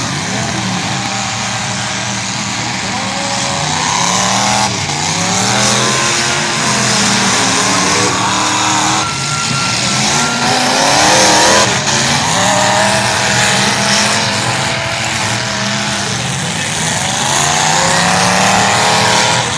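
Demolition derby car engines revving hard, rising and falling in pitch over and over, with tyre squeal and a couple of sharp knocks of cars colliding.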